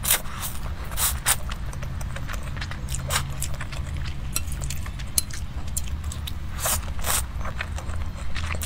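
Close-up eating sounds: slurping instant noodles and chewing, with many short wet clicks and smacks over a low steady hum.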